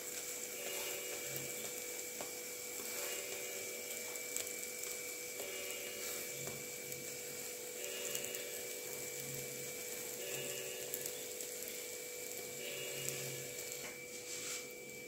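Aloo paratha sizzling steadily in ghee on a hot tawa while a wooden spatula presses it down, with a steady electrical hum underneath.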